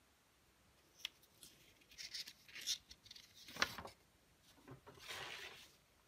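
Faint rustling and sliding of a sheet of poster paper as it is handled and swapped on a table, with a sharp tap about three and a half seconds in.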